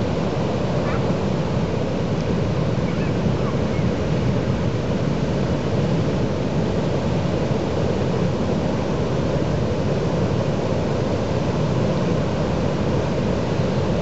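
Heavy surf from a strong swell at high tide, breaking continuously on a sandy beach: a steady, low rush of white water with no single wave standing out.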